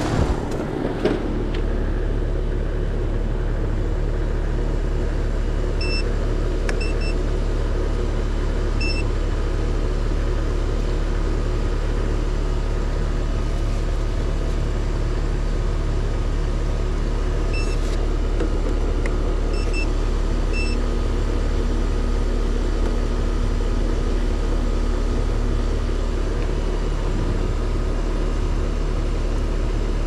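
Heat pump outdoor unit running in cooling mode: a steady low hum from the compressor and condenser fan. A few short high electronic beeps come in small clusters about six seconds in and again near eighteen to twenty-one seconds.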